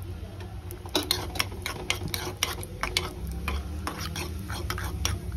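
Steel spoon stirring cashews frying in ghee in a small kadai: repeated scrapes and clicks of the spoon against the pan, starting about a second in, over the sizzle of the frying.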